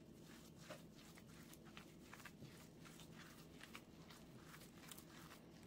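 Faint, irregular squishing and soft clicks of gloved hands kneading raw ground-beef köfte mixture in a bowl, several small sounds a second over a low steady room hum.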